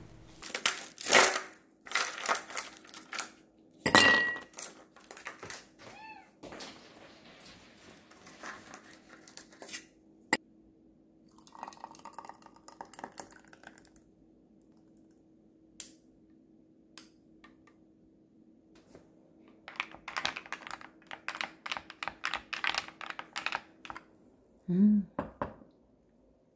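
Kitchen handling sounds: the blender jar is knocked and clinked as it is handled, thick blended tomato juice is poured over ice cubes in a glass, then ice clinks against the glass as the juice is stirred with a wooden stick.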